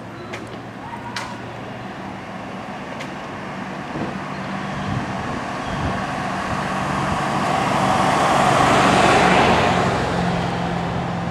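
Pickup truck driving past on an asphalt road: engine and tyre noise swells to a peak about nine seconds in, then fades, over a steady low hum.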